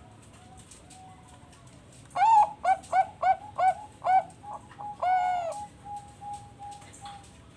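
Zebra dove (Bangkok-type perkutut) singing. A faint note comes first, then a loud run of about six short cooing notes a few tenths of a second apart and one longer note, followed by softer evenly spaced notes trailing off.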